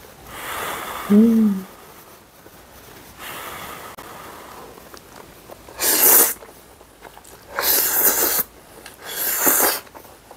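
Spaghetti noodles in a creamy sauce being slurped loudly three times, about six, eight and nine and a half seconds in. Before that comes softer blowing on the steaming-hot noodles, with a short hummed "mm".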